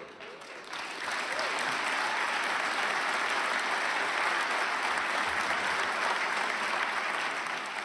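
Large audience applauding, the clapping swelling about a second in, holding steady, then easing off slightly near the end.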